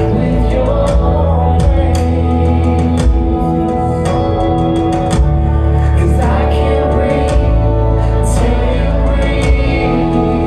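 Gospel praise music with a steady bass, drum and cymbal strokes and sustained chords, with voices singing over it.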